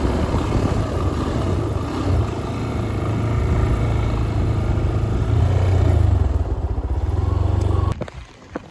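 Motorcycle engine running with road and wind noise as the bike is ridden, a steady low rumble that cuts off abruptly near the end.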